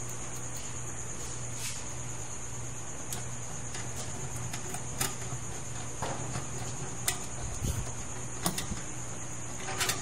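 A magnetic screwdriver driving motherboard screws into a steel PC case: scattered small metallic clicks and taps, more frequent in the second half. Under it runs a steady high-pitched trill and a low hum.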